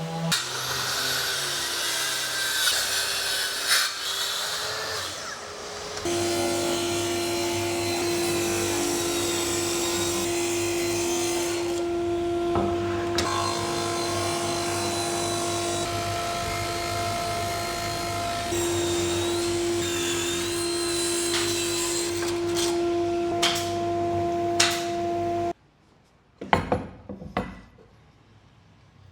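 Woodworking power tools cutting wood, a steady noisy run that cuts off suddenly about three and a half seconds before the end, followed by a few sharp knocks.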